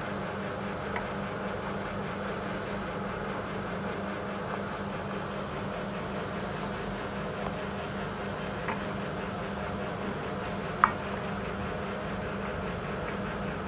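A steady low machine-like hum with a few faint clicks, the clearest one about three-quarters of the way through.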